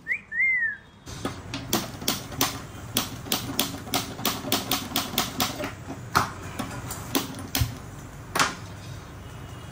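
Hand-held kitchen gas lighter clicking over and over, about three sparks a second, as it is held to a gas stove burner; the clicking stops once the burner catches, about eight seconds in. Two short squeaks come at the very start.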